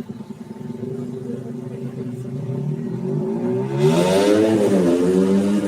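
A bus engine running steadily, then revving up from about three seconds in, getting louder and rising and wavering in pitch as it accelerates.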